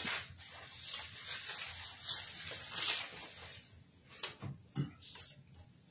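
Printed paper sheets rustling and sliding as they are handled and turned over, followed by a couple of soft knocks near the end.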